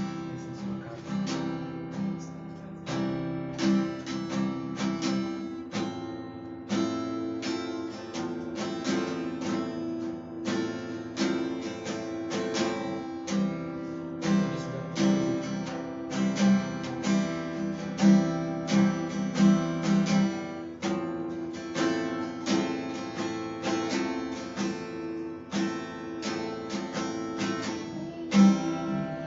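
Acoustic guitar strummed in a steady rhythm, playing chords as an instrumental introduction to a worship song.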